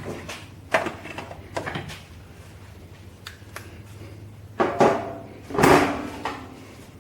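Handling clatter: several sharp knocks and rattles of parts and tools being moved, the loudest two about two thirds of the way through, over a steady low hum.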